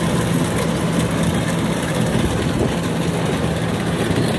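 Kubota DC93 rice combine harvester's diesel engine running steadily with a constant low hum as the machine crawls on its tracks through deep, boggy mud.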